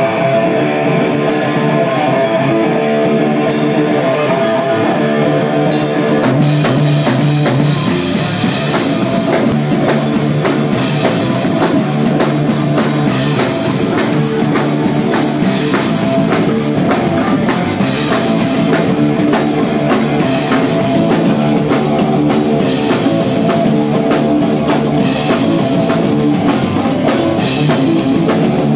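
Live rock band playing loud: a guitar riff alone opens, then the drum kit with cymbals comes in about six seconds in and the full band plays on.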